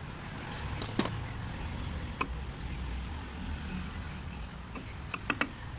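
Small steel diesel injection pump parts clicking as they are handled and set down on a steel vise. There is a sharp click about a second in, another about two seconds in, and three quick clicks near the end, over a steady low background rumble.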